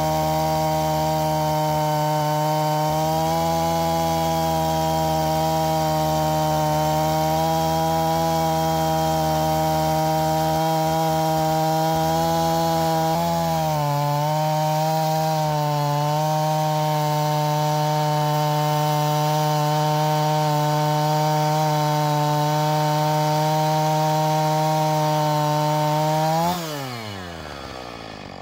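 Husqvarna 445 two-stroke chainsaw with a ripping chain at full throttle, cutting steadily lengthwise through a log without bogging down. Its note sags slightly a couple of times under load. Near the end the throttle is released and the engine note falls quickly to idle.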